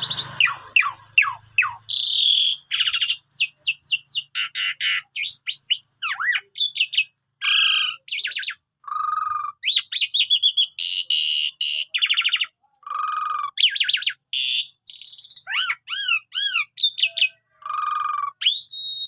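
Asian pied starling (jalak suren) singing a long, varied song: quick whistled slurs that rise and fall, buzzy notes and rapid trills, in short phrases with brief gaps between them.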